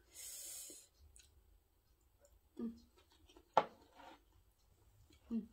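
Quiet eating sounds: a short hiss at the start, soft chewing and mouth sounds, and one sharp click of chopsticks against the bowl about three and a half seconds in.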